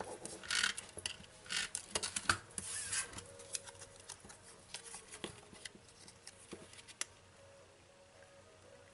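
Small pieces of cardstock handled by hand and pressed together: paper rubbing and rustling with small taps and clicks, busiest in the first three seconds, then sparser and dying away after about seven seconds.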